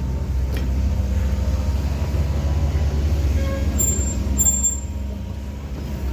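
The Rock River Cannonball locomotive moving slowly in reverse, a steady low rumble that eases a little near the end.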